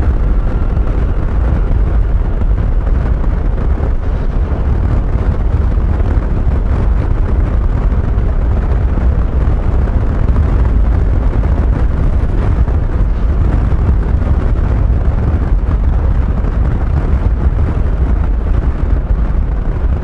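Steady wind rumble on the microphone over a riding scooter's engine and road noise, with no change throughout.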